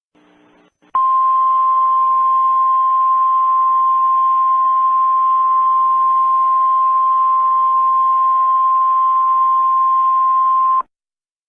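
Emergency Alert System attention tone: a single steady high-pitched tone, about ten seconds long. It starts abruptly about a second in and cuts off sharply near the end.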